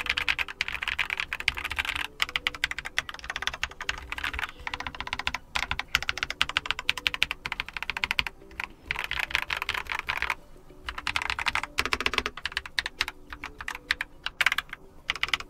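Keychron K2 mechanical keyboard with Keychron brown tactile switches being typed on fast, a dense run of keystroke clacks with a couple of brief pauses. The switches and stabilizers are factory-lubricated, giving a pleasant, smooth sound.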